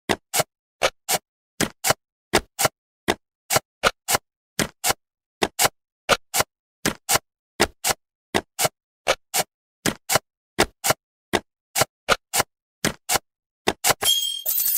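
Cartoon sound effect of jigsaw puzzle pieces clicking into place: short sharp clicks, about three a second, many in quick pairs. Near the end a bright sparkling chime sounds as the puzzle is completed.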